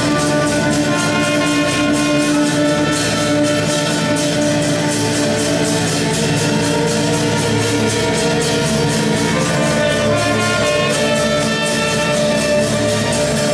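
Small live ensemble playing: two violins and a trumpet over a drum kit keeping a steady, fast beat.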